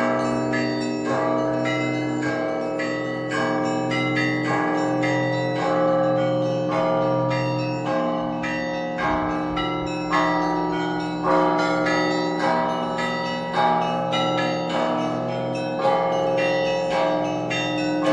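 Russian Orthodox monastery bells rung in a continuous peal: small bells struck in quick repeated patterns, several strikes a second, over the steady hum of larger, deeper bells.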